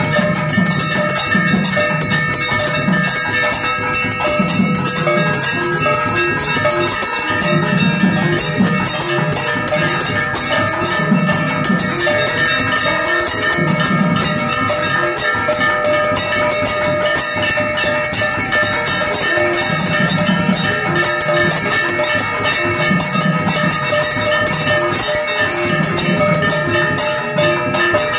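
Temple bells ringing rapidly and without pause for the arati, with a low beat recurring every second or two beneath them.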